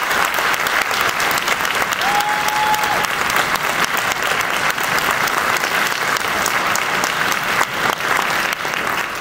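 Audience applauding, a dense steady clapping, with one high held tone rising above it about two seconds in.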